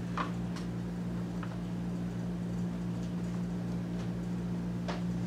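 Steady low electrical hum over room tone, with a faint short click near the end.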